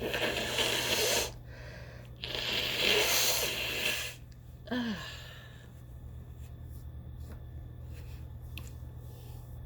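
A woman blowing her nose twice: two long, forceful blows of about one and two seconds, the second the louder, then a brief low voiced sound falling in pitch.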